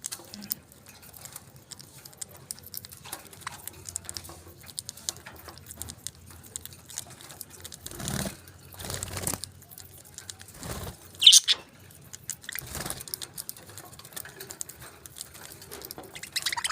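Small pet parakeets chirping and chattering softly amid scattered small ticks and scratches, with a few brief rustles. One sharp, louder chirp stands out about eleven seconds in.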